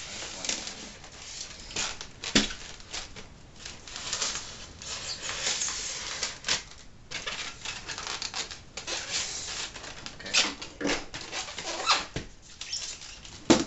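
Knife cutting through the tape on a styrofoam box, with styrofoam scraping and rustling and many irregular sharp clicks; a louder knock comes near the end.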